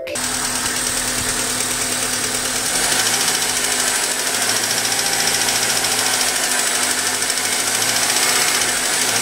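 Honda Accord engine idling with a loud, rapid, steady ticking from the top end. This is typical of excessive valve clearance, which the owner thinks most likely caused the tick.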